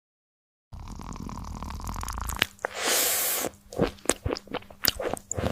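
A cat eating, close up: wet, squishy smacking and chewing with scattered sharp crunching clicks, and a short rushing burst of noise about two and a half seconds in.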